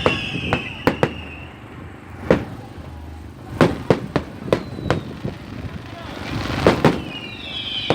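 Fireworks display: a run of sharp bangs from bursting shells, irregularly spaced, with a falling whistle at the start and another near the end. A hiss swells just before two of the loudest bangs, about two-thirds of the way in.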